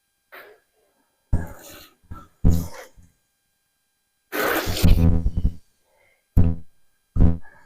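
Background music: a sparse beat of separate, sharply struck pitched hits with complete silence between them, and one longer held note about four seconds in.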